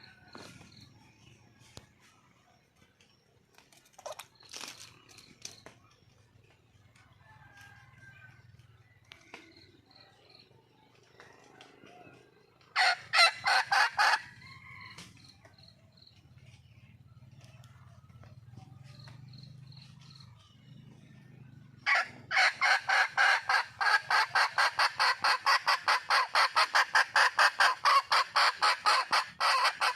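Wild red junglefowl hen calling for a mate: a short run of rapid clucks about thirteen seconds in, then from about twenty-two seconds a long, fast, even train of loud clucks, about four or five a second.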